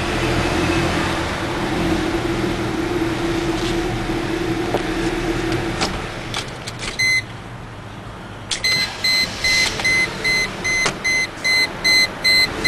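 1998 Mercedes-Benz E320's V6 running under a steady drone from inside the cabin. The engine is misfiring on all cylinders and barely pulling. About six seconds in the engine sound drops away. A high electronic warning beep then sounds once, and from about two seconds later it repeats about twice a second.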